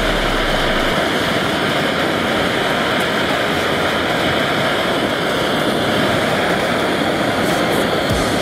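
Gas torch flame running with a steady, even rushing roar.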